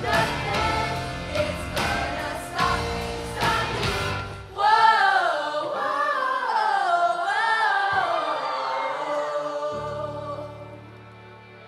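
High-school show choir singing over an instrumental backing with a steady beat. About four and a half seconds in, the beat drops out and the choir sings a loud final held phrase that slides up and down, then fades away as the song ends.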